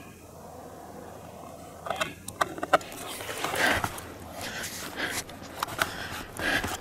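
Footsteps crunching and rustling over the forest floor, with sharp clicks of the handheld camera being handled, starting about two seconds in after a quiet stretch.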